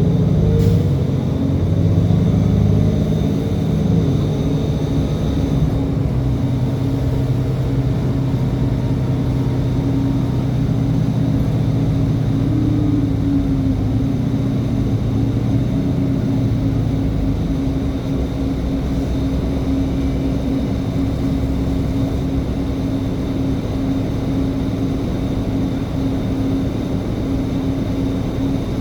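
Diesel transit bus engine running, its pitch rising and falling in the first few seconds, then holding a steady drone.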